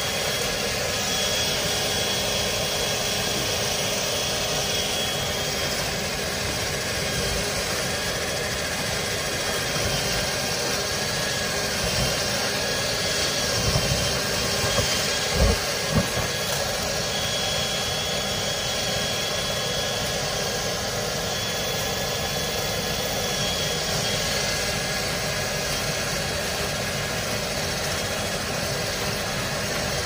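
Steady drone of dryer-vent cleaning equipment running, air driving packed lint out of a clogged dryer duct. A few short knocks come about 13 to 16 seconds in.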